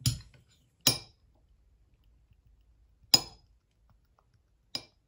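Glass hot sauce bottle knocked four times, sharp clinks with a short ring, as thick sauce that will barely pour is shaken loose. The knocks come irregularly, at the start, about a second in, about three seconds in, and a fainter one near the end.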